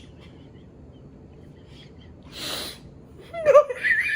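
A woman's suppressed laughter: a quiet stretch, a sharp breath out a little past two seconds in, then high squeaky, wavering laughter breaking out near the end.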